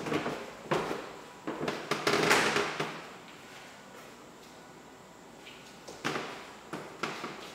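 Footsteps on a bare hardwood floor in an empty room: a few sharp steps, a longer scuffing noise about two seconds in, a pause, then a few more steps near the end.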